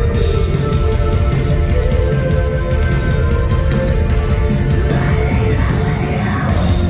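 A heavy rock band plays loud and live, with guitars holding sustained chords over a dense, steady low end.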